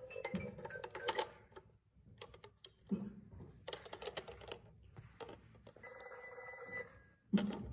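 Peppa Pig toy telephone: short electronic ringing sounds from the toy, with clicks and plastic knocks as its handset is handled and its dial button pressed. A loud knock comes near the end.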